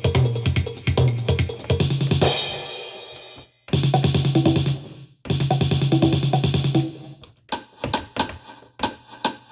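Roland CR-1000 drum machine playing a beat of bass drum and snare through effects. About two seconds in, the pattern breaks into a hissing wash that fades away. The beat then restarts twice, and near the end it breaks up into scattered, stuttering hits.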